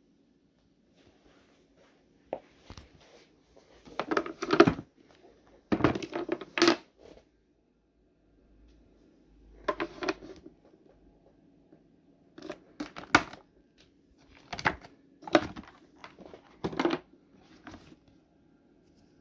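Intermittent handling noises: bumps, clicks and rustling in short bursts, several of them, over a faint steady hum.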